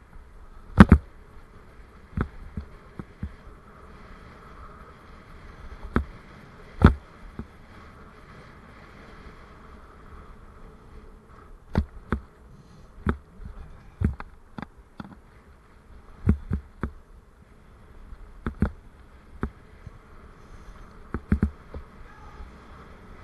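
Raleigh Mustang Elite adventure bike ridden over rough, patched tarmac, heard through its mounted camera: a steady buzzing hum with irregular sharp knocks and rattles as the bike jolts over bumps, the loudest about a second in.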